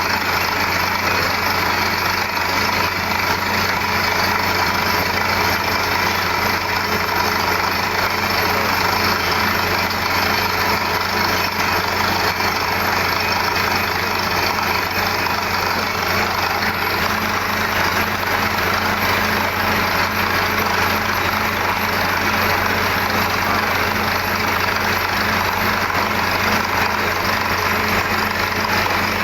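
Engine of a borewell drilling rig running at a steady speed, a constant low hum with dense mechanical noise that doesn't change.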